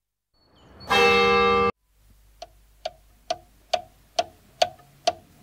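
A loud bell-like chime that swells up and cuts off abruptly, followed by a clock ticking steadily, about two ticks a second.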